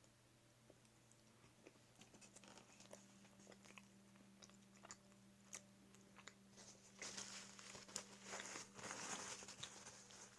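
A person chewing a sausage dog with chili and ketchup: faint scattered mouth clicks at first, then louder, denser chewing over the last few seconds.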